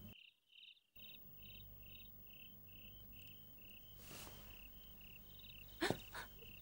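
Faint crickets chirping steadily, about three short chirps a second, as night-time garden ambience. The sound cuts out completely for under a second just after the start, and two short, sharp sounds stand out near the end.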